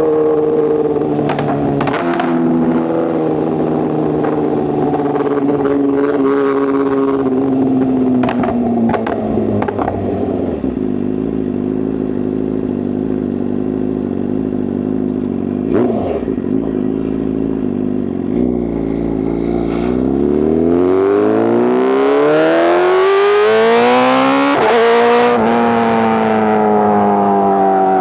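2024 BMW S1000RR's inline-four engine through a titanium exhaust: it runs at falling, then low steady revs for the first half, with a few sharp clicks. About twenty seconds in it revs up hard under acceleration, with a quick gear change near the peak, then the revs ease off.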